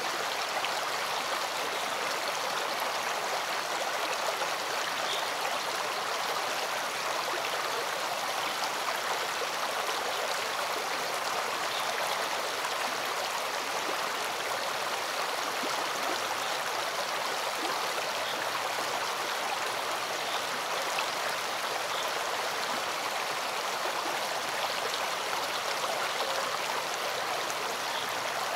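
Small forest stream running over rocks and a low cascade, a steady, unbroken rush of water.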